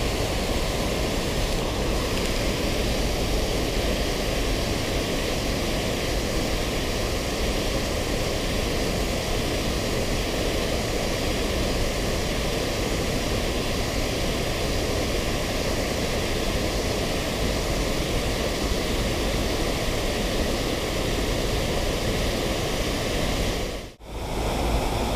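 Water pouring over a small concrete weir into the river pool: a steady rushing, with a brief drop-out near the end.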